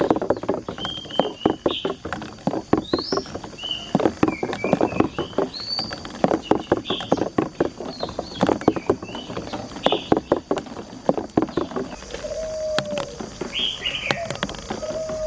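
Marbles rolling and clattering down a marble run, a dense run of quick clicks and knocks. Birds chirp in the background throughout.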